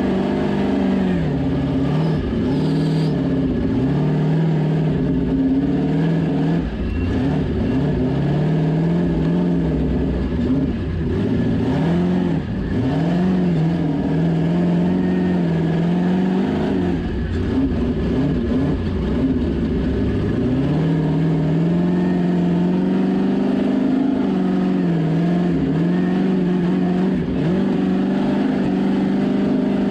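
Ultra4 off-road race car's engine heard from inside the cockpit, revving up and down over and over as the car works its way slowly over rocks and then picks up speed on a dirt track.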